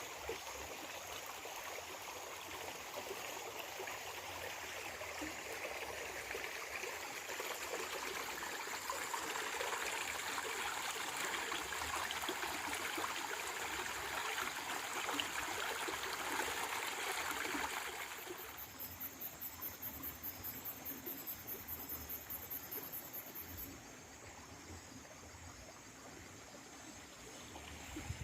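Running water of a stream flowing steadily, with a high insect call pulsing about four times a second for about five seconds after the two-thirds mark.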